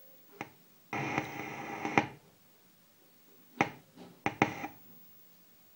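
Creative GigaWorks G500 subwoofer making an unexplained strange noise: a sharp pop, then about a second in a crackling, buzzing burst lasting about a second, followed after a pause by a few more sharp pops.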